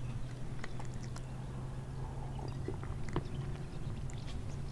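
Pause between speech: a steady low background hum with a few faint, scattered small clicks.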